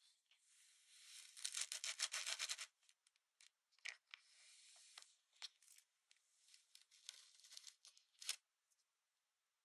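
Kinetic sand giving a fine grainy crackle as a plastic cookie cutter is pressed down into it, loudest in the first few seconds. Quieter scratching follows as fingers press the cutter's stamping plate into the sand, with a few sharp plastic clicks, the loudest near the end.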